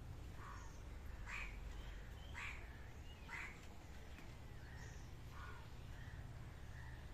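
A bird calling outdoors: a run of short, separate calls, four stronger ones in the first few seconds, then fainter ones.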